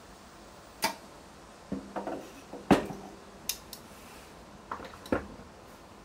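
A series of sharp metallic clinks and clanks, the loudest near the middle: the crucible and its tongs knocking against metal as they are taken away after pouring molten pewter into the mold.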